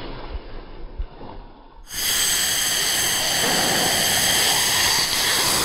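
An RC scale truck's motor and tyres churning through mud, quiet and low, then about two seconds in a loud, steady rushing hiss sound effect takes over with the end screen and cuts off suddenly at the end.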